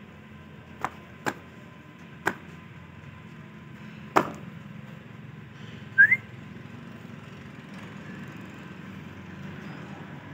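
Four sharp knocks, unevenly spaced in the first half, then one short rising whistle about six seconds in, over a steady low hum.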